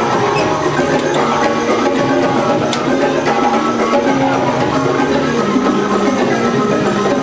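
West African percussion ensemble playing: rope-laced drums struck by hand alongside a balafon, a wooden xylophone with gourd resonators, giving a dense, continuous rhythm with pitched wooden notes.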